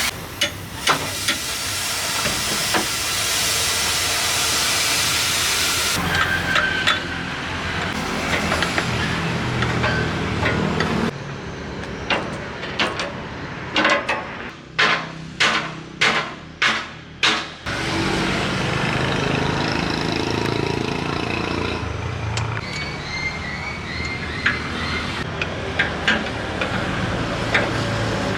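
Scrapping work on an old excavator: a steady hiss, then a run of about eight sharp hammer blows, evenly spaced, then mechanical clatter.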